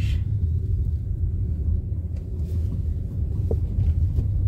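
A car driving on an unpaved dirt road, heard from inside the cabin: a steady low rumble of engine and tyres, with a few faint clicks.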